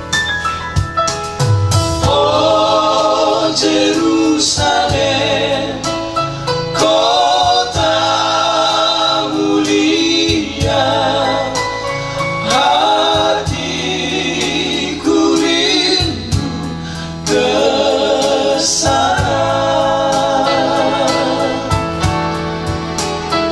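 Several men singing a Christian song together, accompanied by an electronic keyboard.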